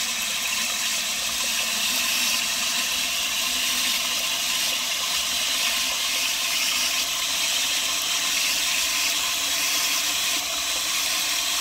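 Water from a garden hose nozzle running steadily into the plastic tank of a Jatco PJB-4c electric backpack sprayer. It is filling the tank with the rest of the water for a 4-gallon herbicide mix.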